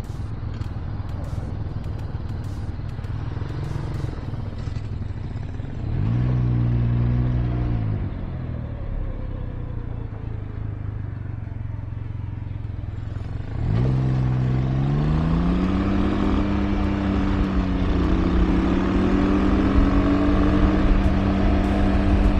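Engine idling at a stop, revved briefly about six seconds in, then pulling away about fourteen seconds in, its pitch rising through the gears and settling into a steady run. A few light clicks in the first few seconds.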